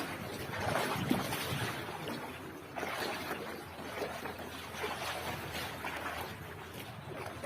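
Sea surf washing onto the beach, a noisy rush that swells and eases every second or two.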